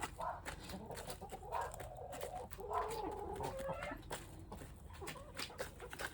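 Chickens clucking in low calls, loudest in the middle, with many short sharp clicks throughout.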